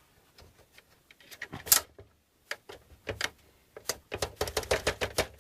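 Plastic clicks and rattles from an Xbox 360 being worked apart by hand to free a clip: scattered clicks, a loud snap a little under two seconds in, then a quick run of clicking near the end.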